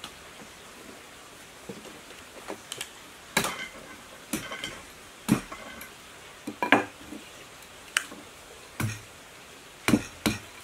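About a dozen sharp, irregular knocks and clatters of hand tools being handled and set down on a wooden workbench. Near the end a wooden mallet strikes a bamboo drift against the copper windings of an electric pump motor's stator, shaping the rewound coils.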